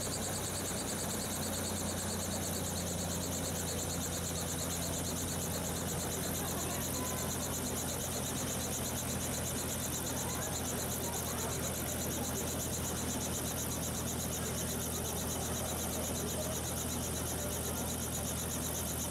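Robinson R44 helicopter running on the ground at idle after landing, its rotor still turning: a steady engine drone with a fast, even flutter of the blades over it.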